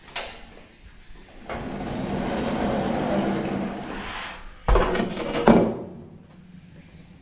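A sliding hatch door in a concrete den scraping open for about three seconds, then two heavy thumps a little under a second apart as a Tsushima leopard cat comes through and jumps up onto the scale holding its food tray.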